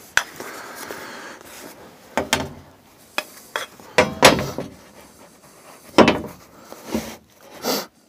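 A steel framing square handled against a plywood wall panel: several sharp knocks as it is set on the wood, with pencil scraping along its edge as lines are marked.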